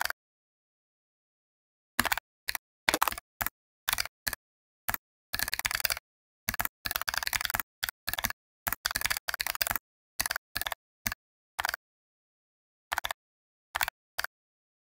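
Typing on a computer keyboard: single keystrokes and quick runs of keys, with pauses of dead silence between them.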